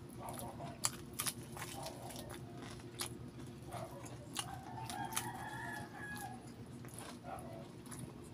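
Close-up chewing and lip-smacking clicks from eating fried chicken by hand. A faint, drawn-out animal call sounds in the background from about four to six seconds in.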